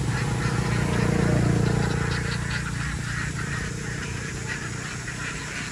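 A large flock of domestic ducks calling together in a dense, continuous din of quacks. Under it is a low rumble that is loudest in the first two seconds and then fades.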